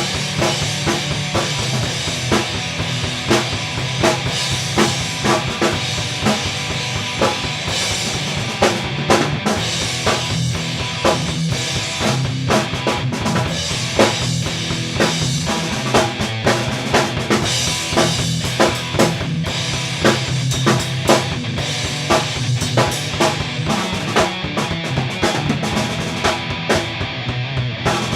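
Music with a drum kit keeping a steady beat, bass drum and snare over a sustained lower part.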